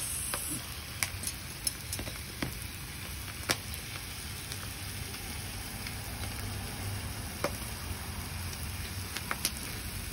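Pork belly sizzling on a grill pan over a portable stove, a steady sizzle with scattered sharp clicks and pops.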